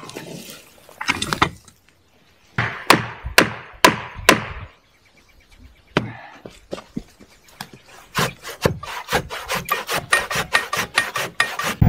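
Hand tools on a log: about four sharp knocks on the wood half a second apart, then, some seconds later, a hand saw cutting into the log with quick, even strokes.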